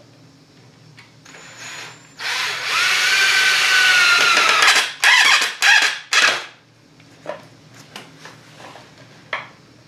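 Cordless drill driving a 3-inch drywall screw into wood: the motor runs with a whine for about two and a half seconds, then three short bursts as the screw is seated.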